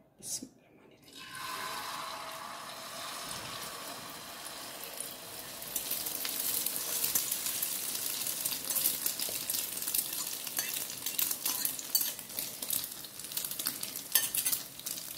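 Beaten egg mixture hitting a hot iron tawa greased with desi ghee and frying: a sizzle with many small pops that starts about a second in and grows louder about six seconds in. A short clink of the fork on the glass bowl comes just before the sizzle starts.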